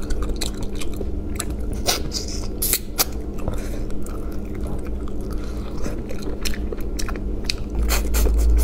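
Close-up eating sounds of a person chewing mala rabbit head meat picked from the bone by hand, with irregular wet smacks, clicks and small crunches. A steady low hum runs underneath.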